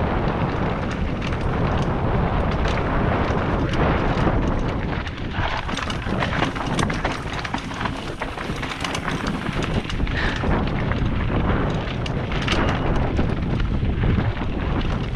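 Mountain bike descending a rocky gravel trail: a steady low rumble of wind on the microphone, with the tyres crunching over loose stones and the bike rattling in frequent sharp clicks and knocks.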